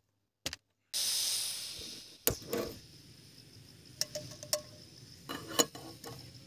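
Portable gas camping stove hissing, strongest as it starts about a second in and then settling lower, with sharp metallic clinks and knocks of a lightweight camping pot being handled and set down on the stove's pot supports, the loudest clink near the end.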